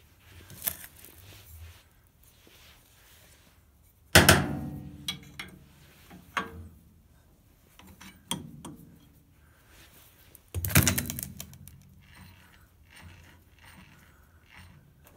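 Metal clanks and knocks from a brake lathe's cutting tool and tool bar being repositioned by hand. There are two loud clanks with a short ringing tail, about six seconds apart, among lighter knocks.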